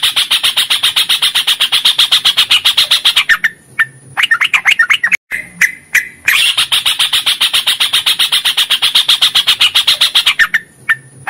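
Yellow-vented bulbul (trucukan) singing a long, fast run of evenly repeated notes, the rolling trill that keepers call "ropel panjang". The run lasts about four seconds, breaks into a shorter bubbling phrase, and then starts again a little past halfway and runs for another four seconds.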